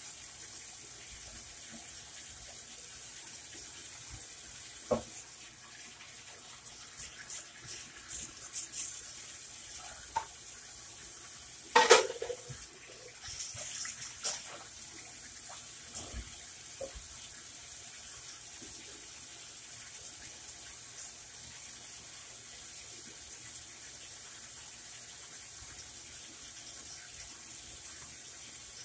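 Scattered clinks and knocks of pots and utensils over a steady hiss, with a louder clatter about twelve seconds in.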